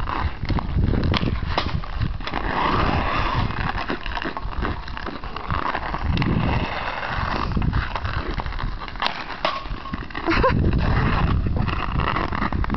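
Hockey skates scraping and carving on outdoor rink ice, with scattered sharp clacks of a hockey stick on a puck and the ice, over a steady low rumble.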